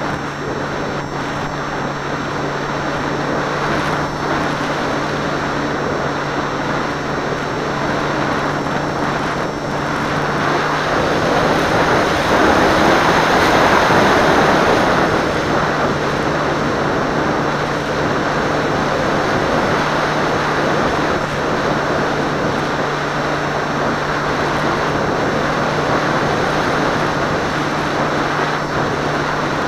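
Seawind amphibious plane in flight, heard from a camera on board: its motor and propeller drone steadily under a rush of wind over the airframe. The rush swells for a few seconds about halfway through.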